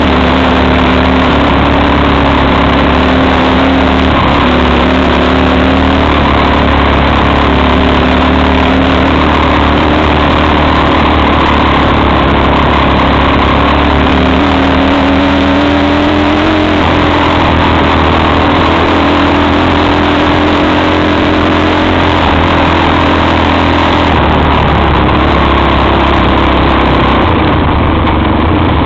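XY250STXE quad's engine running loud and without a break as it is ridden along dirt and grass tracks, its pitch rising and falling with the throttle, picked up by a microphone mounted on the quad.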